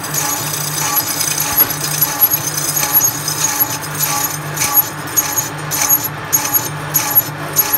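Lathe turning a large steel disk: a steady pulsing machine hum with a high whine from the cut, and frequent sharp ticks and clinks of metal chips.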